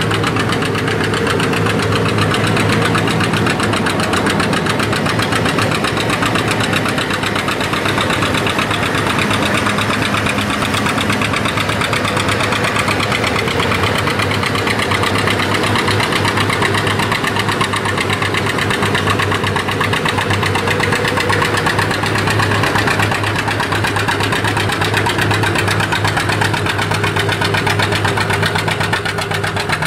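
Farm tractor engine running steadily under load during a farm-stock tractor pull, held to a constant slow pace, its exhaust pulsing rapidly and evenly with no change in pitch.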